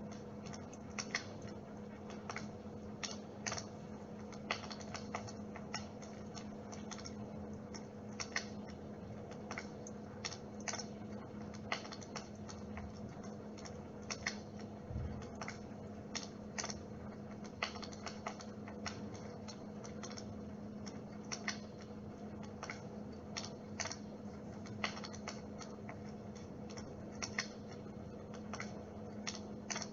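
Dimplex water-mist electric fire running with a steady low hum, overlaid by irregular light crackling clicks several times a second.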